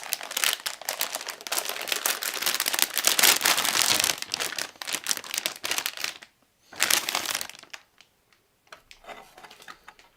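Plastic packaging crinkling and crackling as it is handled. It stops about six seconds in, then comes back in one short burst, followed by a few faint ticks.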